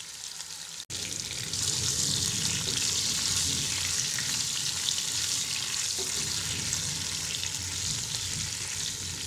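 Potato chunks sizzling in hot oil in a non-stick frying pan, stirred and turned with a wooden spatula. A brief break just under a second in, then steady sizzling.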